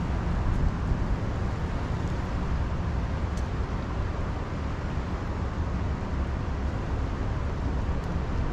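Steady low rumbling outdoor noise: wind buffeting the microphone over water flowing out below a hydroelectric dam. A couple of faint ticks come through it.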